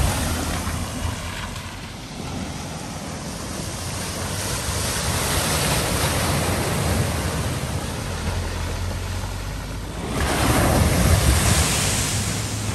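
A vehicle driving through deep flood water at a ford: a continuous rush and splash of water that swells slowly, then surges loudest about ten seconds in.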